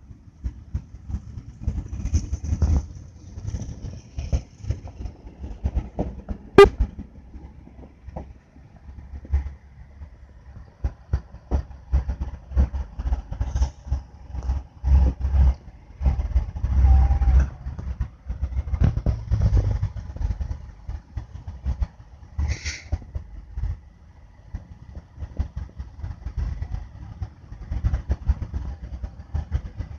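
Traffic noise from a jammed freeway of slow-moving cars: an uneven low rumble that swells and fades, scattered clicks, a sharp crack about six and a half seconds in and a brief higher-pitched burst near the end.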